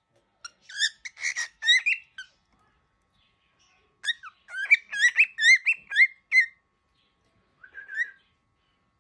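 A baby cockatiel, angry, making quick shrill chirps whose pitch wavers up and down. The chirps come in three bouts: one from about half a second to two seconds in, a longer, louder run from about four seconds to six and a half, and a short one near the end.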